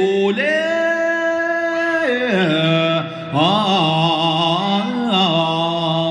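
Chanted singing in long held notes, stepping down in pitch from one note to the next, with a short breath pause about halfway through.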